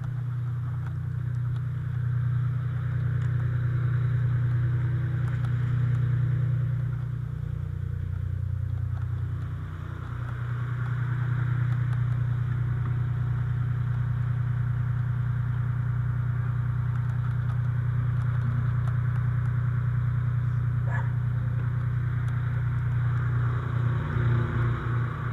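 A fire engine's diesel engine runs steadily at pumping speed, with a strong, even low hum. It dips briefly about ten seconds in, and near the end its note breaks up into uneven chugging as the pump is shut down.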